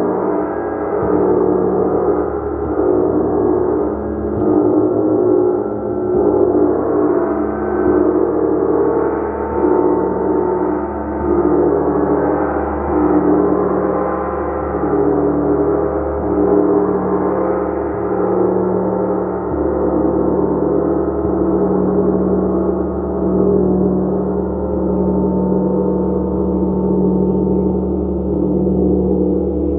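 Gong played continuously, a dense wash of many overlapping sustained tones that swells and eases in slow pulses every second or two.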